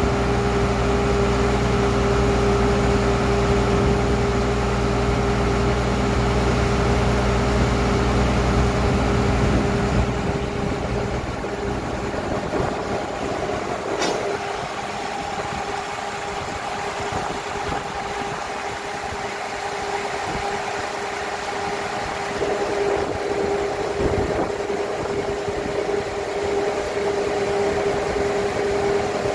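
Horizontal directional drilling rig running, a steady machine drone with a constant whine over it. The deep low rumble drops away about ten seconds in, and the sound grows louder again a little past twenty seconds, with a sharp click and a knock along the way.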